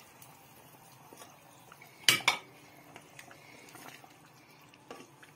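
Metal cookware clanking: two sharp metallic knocks close together about two seconds in, with a few soft knocks near the end.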